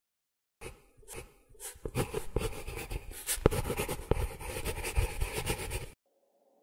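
Pen scratching across paper in quick, irregular strokes with sharp little clicks. It starts about half a second in and stops suddenly about six seconds in.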